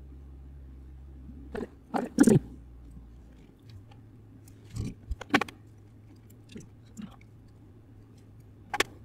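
A scattering of sharp clicks and knocks over a low steady hum. The clicks cluster about two seconds in and again around five seconds in, with a last one near the end. The hum shifts up in pitch about three and a half seconds in.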